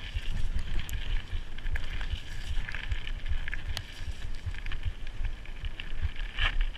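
Mountain bike riding over a dirt singletrack: tyres on dirt and rattles from the bike, with irregular low thumps from wind buffeting the helmet or chest camera and a few sharp clicks, about a second in, near four seconds and near the end.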